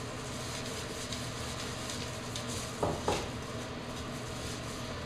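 Cloth rag rubbing over a freshly stained wooden piece, wiping off excess stain: a couple of soft wiping strokes about three seconds in, over a steady background hum.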